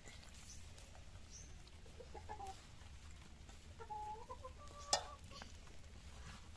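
Hens clucking faintly, a few short calls, with one sharp click just before five seconds in.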